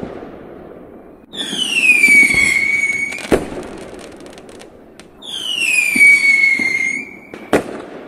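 Whistling firework rockets, a sound effect. Two rockets each whistle, falling in pitch and then holding steady for about two seconds, and each ends in a sharp bang: the first about three seconds in, the second near the end. The first bang is followed by a brief crackle.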